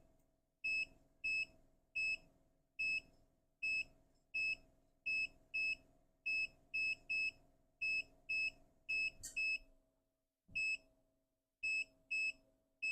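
Digital multimeter beeping in continuity mode as its probe is touched from point to point on a PlayStation 5 board to check for a short circuit: a string of short, high beeps, roughly one or two a second, irregularly spaced.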